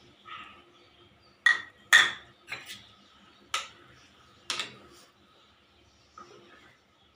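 Metal ladle clinking against the side of a stainless steel cooking pan while stirring a gravy: about six sharp clinks, loudest about two seconds in.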